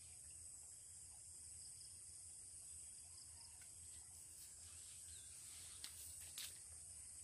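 Faint steady high-pitched chirring of insects, with two brief sharp clicks about six seconds in.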